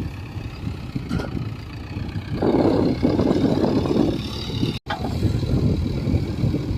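JCB 3DX backhoe loader's diesel engine running, growing louder for about two seconds in the middle before settling back.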